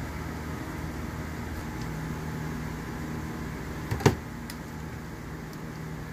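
Steady background hum, like a kitchen fan or ventilation, with one sharp clack about four seconds in as a kitchen knife is set down on the cutting board.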